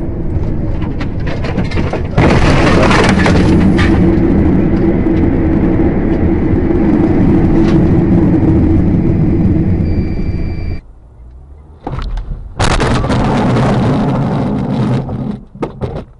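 Vehicle running noise heard from inside the cab: a steady engine drone with road and wind noise, which gets much louder about two seconds in. After a short quieter gap, a second loud stretch of vehicle noise starts and breaks into short irregular bursts near the end.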